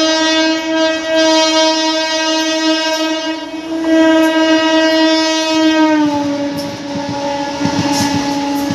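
Indian Railways electric locomotive sounding one long held horn blast as it approaches and passes at speed; about six seconds in the horn's pitch drops as the locomotive goes by. Near the end the passing coaches' wheels clatter rapidly over the rail joints.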